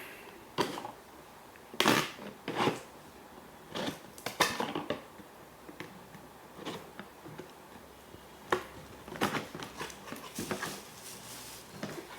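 Plastic microwave cookware pieces and their packaging being handled: irregular clicks, clatters and rustles as the kit is unpacked.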